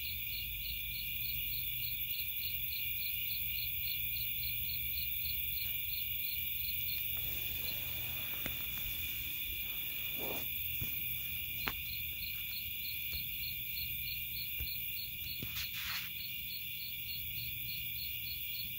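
A chorus of night insects trilling steadily in a high band, with a regular pulse about three times a second. Around the middle, a few soft rustles and clicks come from the phone being handled.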